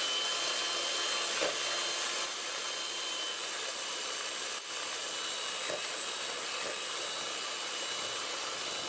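Electric hand mixer running steadily, its twin beaters whisking egg whites and sugar into meringue, with a steady high whine over a rushing hiss.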